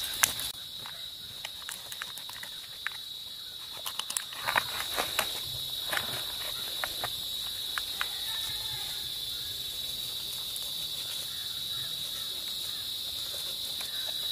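A steady high-pitched insect drone throughout, with scattered short clicks and scrapes from a knife scoring cuts into the skin of a large fish, most of them between about four and six seconds in.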